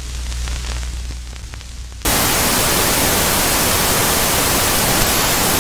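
Television static sound effect: a low hum with faint crackling, then a loud, even static hiss cuts in abruptly about two seconds in.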